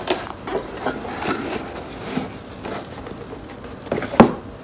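Cardboard snack box being handled, with irregular rustles and light taps and one sharp knock about four seconds in.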